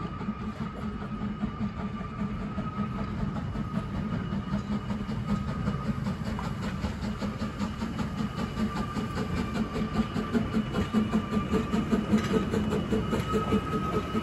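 Narrow-gauge steam locomotives working hard toward the listener, their rapid exhaust chuffs growing steadily louder as the doubleheaded train approaches.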